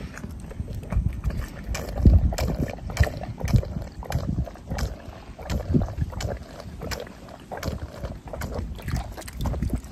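Goat drinking water from a galvanized metal bucket: repeated irregular slurps and gulps, with the water sloshing in the pail.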